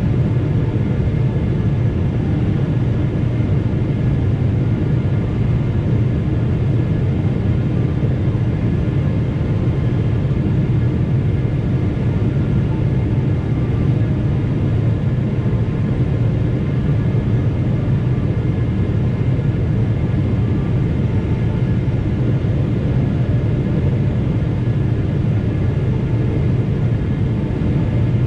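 Steady Boeing 777 cabin noise during the approach: a loud, even low rumble of engines and rushing air, with faint steady whine tones above it.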